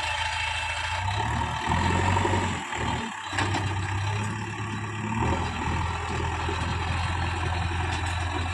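JCB 3DX backhoe loader's diesel engine running under changing load while levelling soil. The engine note steps up about a second in, dips briefly around three seconds in, and settles back to a steady run.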